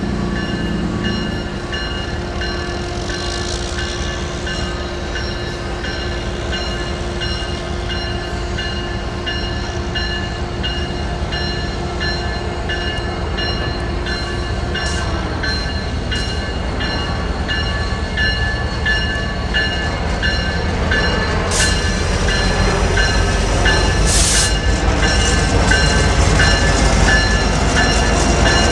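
BNSF freight train's diesel locomotives approaching, the low engine rumble and wheel noise growing louder over the last third as the lead unit draws level. A bell rings steadily throughout.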